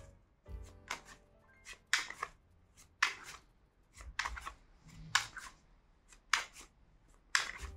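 Deck of Hermetic Tarot cards being shuffled by hand: short card swishes, roughly one a second at an uneven pace.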